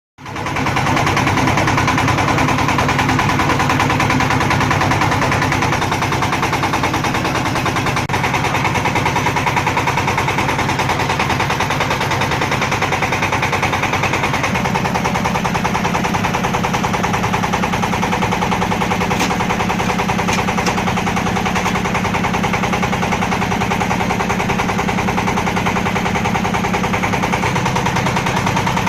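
JZ250 brick-making machine running: a loud, steady, fast rattle over a low hum that starts abruptly.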